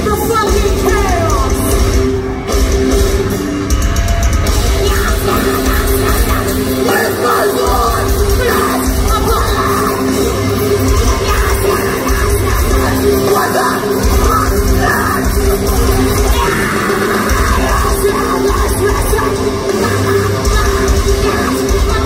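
Metalcore band playing live, loud and dense: distorted guitars and pounding drums under screamed vocals.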